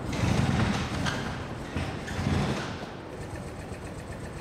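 Rover 75 being shaken on a squeak-and-rattle test rig: two loud low rumbles in the first three seconds, with a short knock about a second in, then a quieter steady hum.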